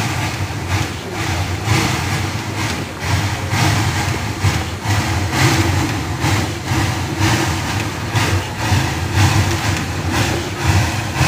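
Small Orenstein & Koppel 0-8-0T narrow-gauge steam locomotive working slowly, its exhaust beating in a steady chuff of about one and a half beats a second over a low rumble.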